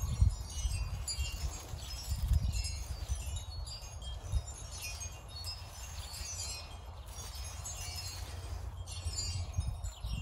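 Light chiming: scattered short high ringing tones that come and go throughout, over a low rumble.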